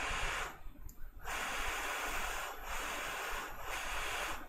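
Hot air rework station blowing on a phone logic board to hold it at soldering temperature: a steady hiss that breaks off briefly several times.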